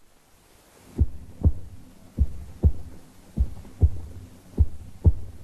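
Slow heartbeat sound effect: four deep 'lub-dub' double beats, about one pair every 1.2 seconds, starting about a second in.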